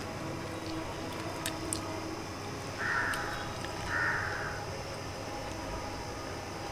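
A crow cawing twice, each caw about half a second long and about a second apart. A few light clicks come in the first two seconds.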